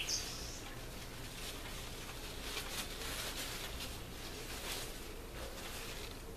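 Ruffled crepe paper rustling in short, scattered crinkles as it is handled and pressed onto cardboard. A brief bird chirp sounds right at the start.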